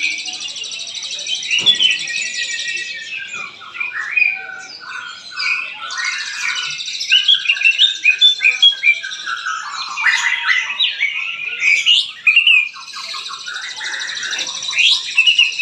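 Many caged songbirds singing at once in a songbird contest: a dense, loud mix of overlapping chirps, whistles and quick phrases, with long high trills coming in and dropping out three times.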